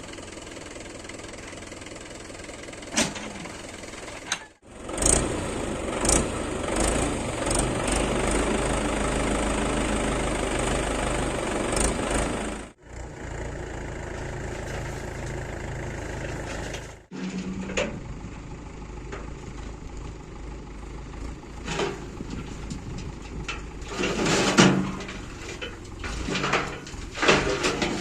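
Diesel engines of a backhoe loader and tractor running at work, in several clips cut together. The engine is loudest in the stretch between about five and twelve seconds in, and short knocks and clanks come through near the end.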